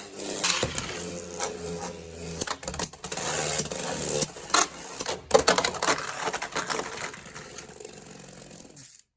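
Two Beyblade X spinning tops whirring in a plastic stadium, with sharp clacks as they hit each other and the stadium wall. The hardest hit comes a little after five seconds in. The whirr then fades as they wind down, stopping just before the end.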